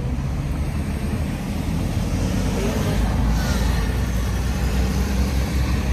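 Road traffic on a busy street: a steady low rumble of passing cars and their tyres.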